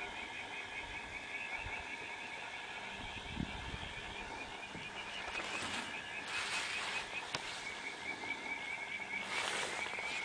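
A night chorus of frogs calling, a steady run of quick, high chirps repeating many times a second. Brief bursts of hiss come about six seconds in and again near the end.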